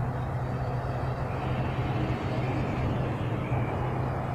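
A steady, low engine drone over outdoor background noise, holding an even level throughout.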